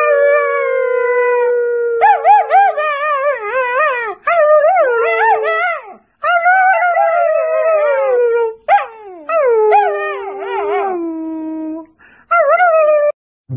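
German Shepherd puppy howling: a run of about six long howls with a wavering, yodelling pitch, several sliding down at the end, separated by short breaks for breath.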